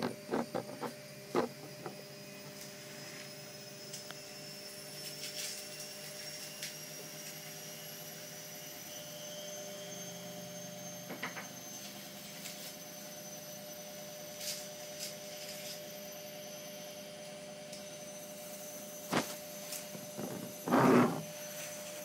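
Steady electrical hum with a faint high whine. A few small clicks come early on as a coin is turned over on a cloth, and a louder short knock of handling comes near the end.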